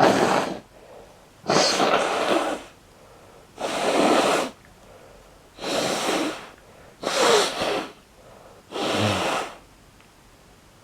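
A person sneezing loudly over and over: six sneezes in a row, each a breathy burst of about a second, coming every one and a half to two seconds.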